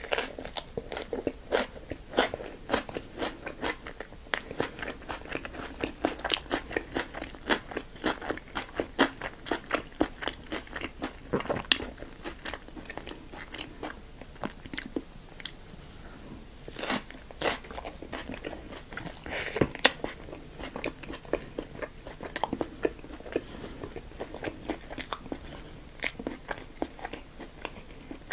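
Close-up eating sounds of a Burger King combo meal: biting and chewing with a dense run of crisp crunching clicks.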